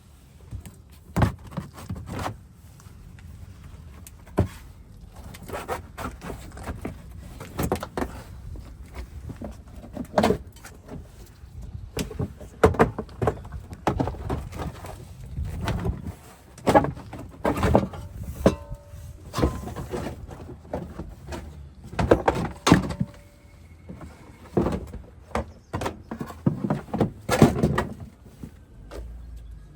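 Irregular clanks, knocks and rattles of hand tools and metal car parts being handled during workshop disassembly, with a brief metallic ring twice near the middle.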